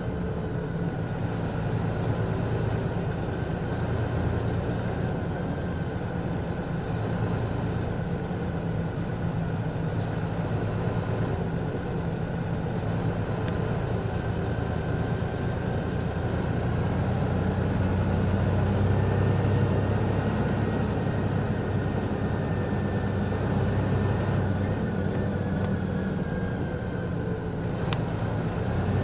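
Detroit Diesel Series 60 inline-six diesel of an MCI D4000 coach idling steadily, a deep even hum that swells a little past the middle.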